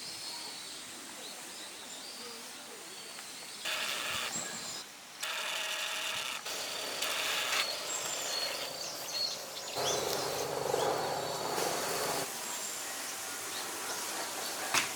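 Outdoor ambience with small birds chirping. Louder pitched sounds come and go about four seconds in, and a low pitched hum follows about ten seconds in.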